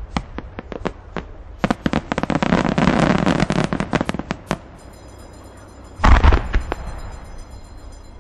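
Aerial fireworks bursting: sharp cracks and a dense run of crackling stars, then a single loud, deep boom about six seconds in, followed by scattered cracks.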